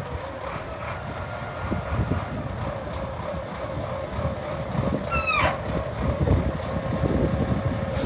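Kalmar LMV 20-1200 heavy forklift's diesel engine running as the truck moves slowly: a low rumble with a steady hum. About five seconds in, a short high squeal slides down in pitch.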